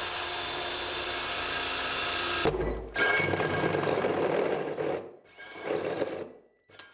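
Cordless drill driving a hole saw through the plastic wall of a 55-gallon drum. The motor runs steadily at high speed for about two and a half seconds, then a louder, rougher cutting noise follows for about two seconds. Near the end it stops and starts in two shorter bursts.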